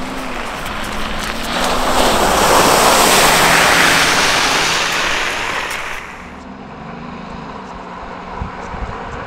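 An off-road 4x4 drives through muddy puddles close by, its tyres throwing up a loud rush of splashing water that swells over about two seconds and stops suddenly about six seconds in. Under it, and again afterward as a quieter steady running, the engine note rises and falls with the throttle.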